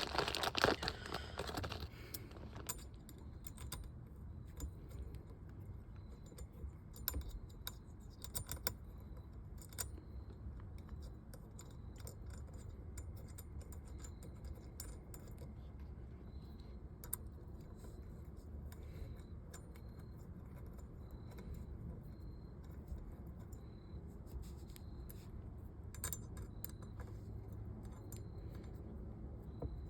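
Small metal parts and hand tools clinking and jangling while a steering-wheel quick-release hub is bolted on: a burst of clatter in the first two seconds, then sparse light clicks and taps.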